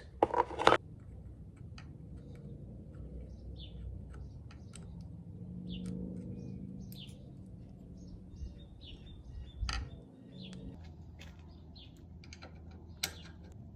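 Faint, scattered chirps of small birds over a low, steady background rumble, with a few sharp clicks and knocks, the loudest a little past halfway and near the end.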